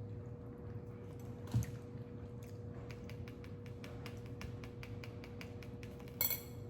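A run of quick, light clicks and taps, typical of utensils handled on a plate, with a soft thump about a second and a half in and a short ringing clink near the end.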